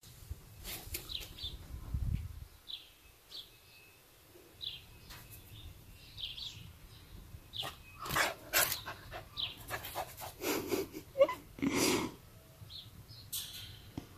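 A puppy yipping and barking in short bursts several times, most of them in the second half.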